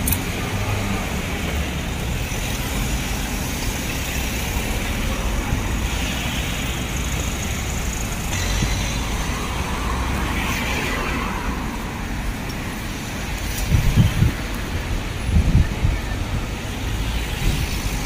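Steady city road traffic: car and van engines and tyres passing on the street, with two louder low rumbles near the end.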